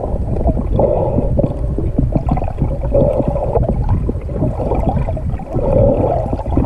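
Muffled underwater water noise picked up through a camera housing just below the surface: a continuous low rushing with gurgling, bubbling crackles and a few louder swells as the swimmer moves.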